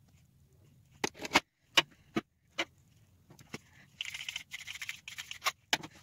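Clicks and knocks of cosmetic containers being handled, then about four seconds in a hand-held spray bottle hisses in three quick pumps.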